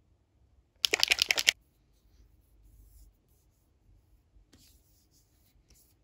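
Plastic bottle of Anessa sunscreen milk shaken hard for under a second, a rapid rattle of about nine strokes. Then faint rustles and light clicks of the bottle being handled.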